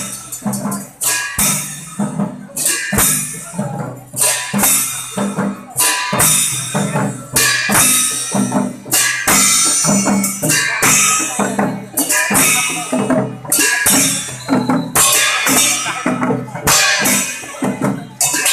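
Traditional Newar procession percussion: a barrel drum beaten by hand in a driving rhythm, with other percussion striking sharply through it.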